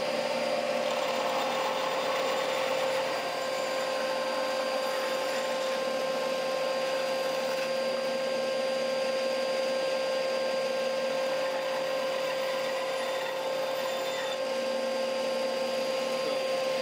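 Bandsaw running with a dust extractor, a steady hum with a held whine, as its blade cross-cuts thin discs off a pine broomstick handle.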